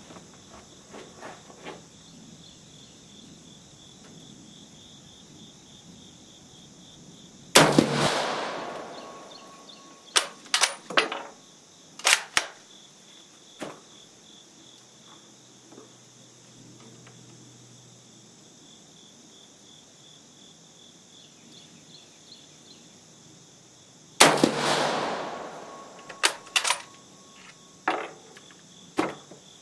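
Two rifle shots from a Swedish M38 Mauser short rifle in 6.5×55mm, about seventeen seconds apart, each ringing off, and each followed by a few sharp metallic clicks of the bolt being worked. Crickets chirp steadily underneath.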